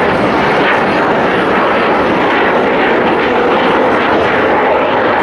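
Airplane engine noise: a loud, steady rush with no pauses.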